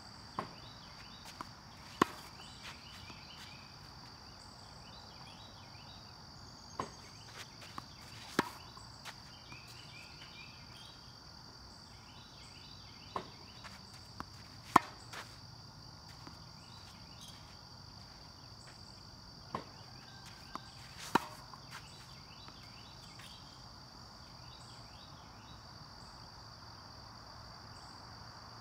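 Four times, a ball machine pops a tennis ball out, the ball bounces, and about a second and a half after the launch a tennis racket strikes it on a topspin backhand with a loud crack. The shots come at an even pace of one about every six seconds. A steady chorus of crickets and other insects chirps underneath.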